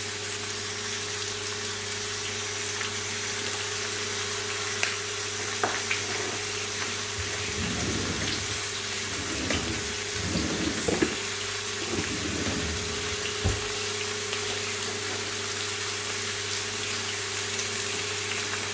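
Hamburger patties sizzling in a cast-iron grill pan on a gas flame: a steady frying hiss with scattered faint pops, over a constant low hum. A few soft low knocks come in the middle.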